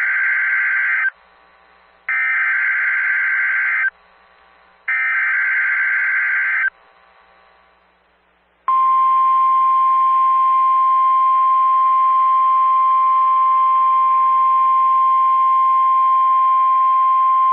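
NOAA Weather Radio Emergency Alert System activation: the SAME digital header sounds as three loud buzzing data bursts, each just under two seconds and about a second apart. After a pause comes the steady single-pitch 1050 Hz warning alarm tone, held for about nine seconds, which signals that a warning message follows, here a severe thunderstorm warning.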